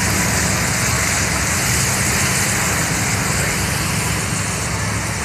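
Steady car noise heard from inside the vehicle on wet roads: a low engine-and-road rumble under an even hiss.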